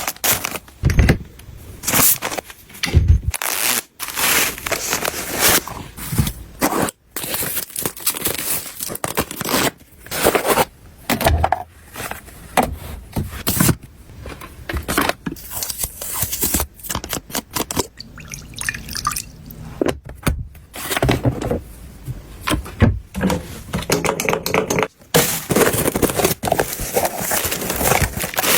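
Restocking handling sounds: containers and packaging tapped, scraped and set down in quick succession, with many sharp clicks and knocks. The sound breaks off abruptly a few times where clips are cut together.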